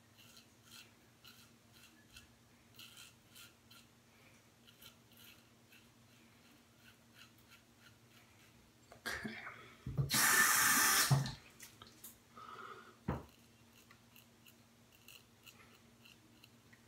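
Double-edge safety razor scraping through stubble in short, repeated strokes. A sink tap runs in a loud rush for about two seconds near the middle, followed by a sharp knock.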